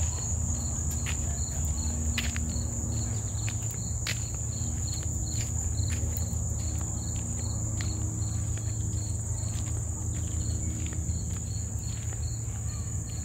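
Insects singing: one steady high-pitched trill, with a second insect chirping at a lower pitch about twice a second. Underneath are a steady low rumble and scattered faint clicks.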